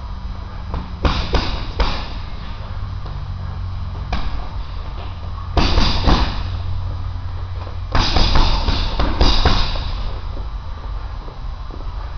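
Punches landing on a hanging heavy punching bag: about six sharp thuds in irregular bursts, some in quick pairs, the loudest about halfway through and again near 8 and 9.5 seconds in. A steady low hum runs beneath them.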